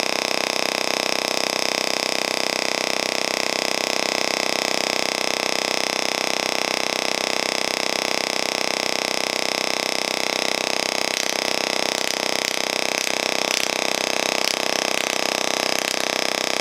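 Small desktop Tesla coil running, its spark discharge giving a steady buzz. From about ten seconds in, irregular crackles join it.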